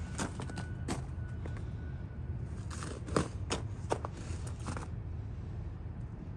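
Station ambience on a light-rail platform: a steady low rumble with a scattering of clicks and knocks, the loudest about three seconds in.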